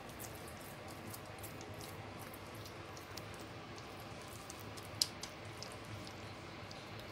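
Faint squishing and small wet clicks of fingers working a sticky minced-chicken mixture in a plastic bowl, with one sharper click about five seconds in, over a faint steady hum.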